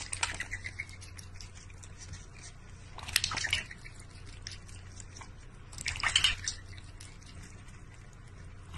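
Water splashing and dripping in a large stainless steel bowl as a duck dabbles its bill in it and a cat drinks from it, in three short bouts of wet clicks: near the start, about three seconds in, and about six seconds in.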